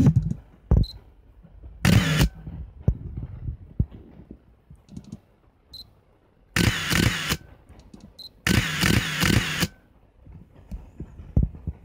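Canon EOS-1 film SLR firing its shutter with the built-in motor winding the film on: one short release about two seconds in, then two longer motor runs, the second about a second long, with small clicks between. The mechanism is working normally.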